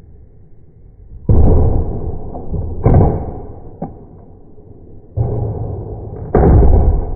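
Four gunshots at uneven intervals, each sharp and very loud with a short echoing tail, heavily overloading the recording.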